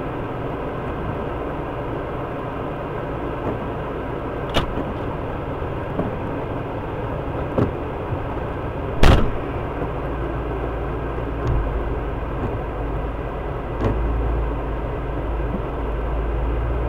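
Idling vehicle engine heard from inside the cab, running steadily, with a few scattered knocks. The loudest knock comes about nine seconds in.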